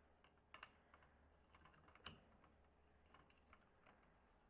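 Near silence with faint, scattered light clicks and taps of small metal hardware being handled as a bolt is started by hand into a rack leg; the clearest are a quick pair about half a second in and a single click about two seconds in.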